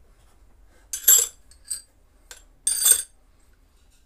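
Steel drill bits and a chisel bit clinking against each other and being set into a plastic tool case, in two short clatters about a second and a half apart.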